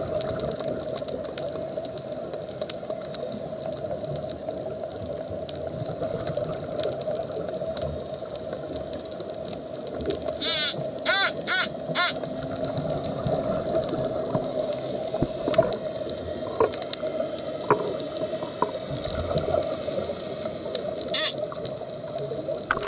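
Muffled underwater ambience picked up through a camera's waterproof housing: a steady hum with a hiss above it. A quick cluster of four short, loud bubbling hisses comes about halfway through, and one more near the end.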